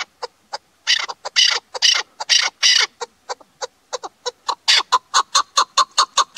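Chukar partridge calling: a series of harsh, clucking chuk notes that speed up into a rapid run of about four or five a second near the end.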